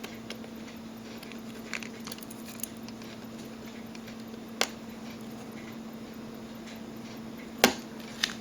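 Scattered small clicks and taps of watchmaker's tools handling a tiny screw on a quartz watch movement, the sharpest click near the end, over a steady low hum.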